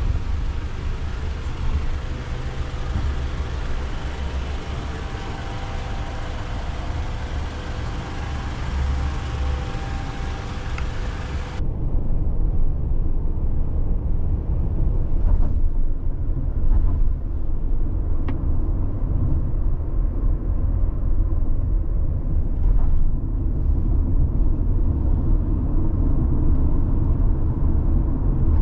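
Steady rumble and hum of vehicles in a parking garage. About twelve seconds in, it gives way to the muffled low road rumble inside the cabin of a moving Toyota Vellfire minivan, with a few faint clicks.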